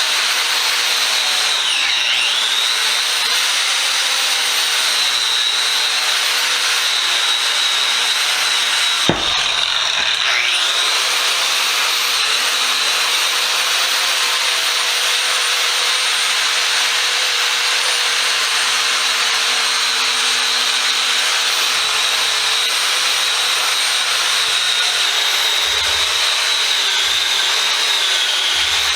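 Power tool driving a wire wheel, stripping paint and rust from a cast-iron bench vise. A steady high whine over a loud scouring hiss, its pitch sagging briefly twice as the wheel is pressed into the work, with a short break about nine seconds in.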